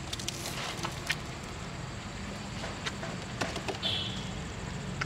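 An Asian elephant tusker feeding on palm fronds, the leaves crackling and snapping in irregular short clicks as he handles and chews them.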